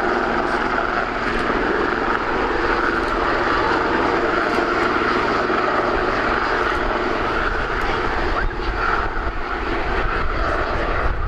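Sikorsky S-76 helicopter's twin turboshaft engines running with a steady turbine whine and the rapid beat of the rotor blades as it hovers low.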